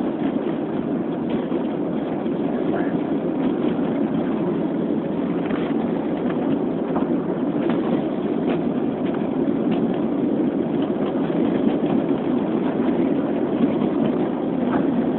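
Steady road and engine noise inside a moving car, an even low rumble with faint scattered ticks.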